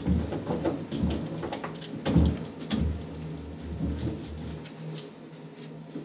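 A large sheet of printing paper rustling and crackling as hands smooth it over an inked tree-stump slice and start to peel it off, with a few sharp crackles and a low rumble that fades after about four and a half seconds.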